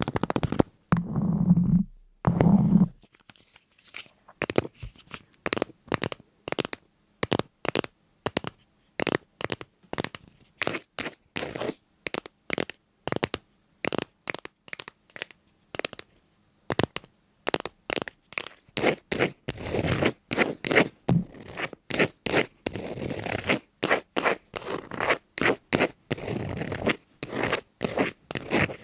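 A quick, irregular series of short crunching, scratching clicks, several a second, with two louder, deeper bursts in the first three seconds.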